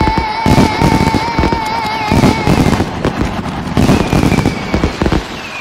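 Fireworks show: many aerial shells bursting in quick, overlapping bangs. A long wavering whistle runs over the first half, and a higher whistle comes near the end.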